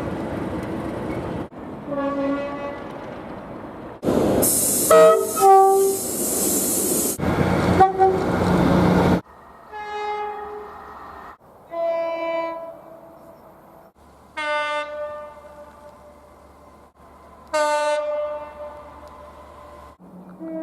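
Train horns in a run of about eight short, abruptly cut clips, each a blast of steady chord tones. A few seconds in, a louder clip has the horn falling in pitch over heavy running noise as a train passes close; the later clips are shorter blasts that sound and fade.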